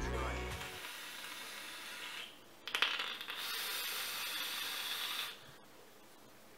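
Sub-ohm vape being hit and a large vapour cloud blown out: a soft airy hiss, then after a couple of clicks a louder breathy hiss lasting nearly three seconds that stops suddenly.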